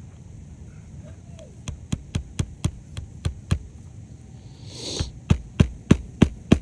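Hammer driving roofing nails into asphalt shingles: a run of light taps about four a second, a brief rustling hiss about five seconds in, then harder, louder blows about three a second.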